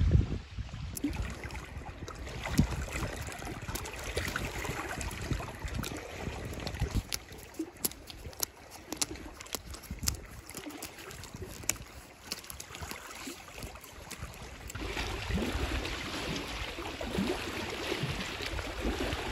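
Outdoor rustling and scattered small clicks, like handling and scrambling over rock and bark. From about fifteen seconds in, a steadier hiss of wind and water takes over.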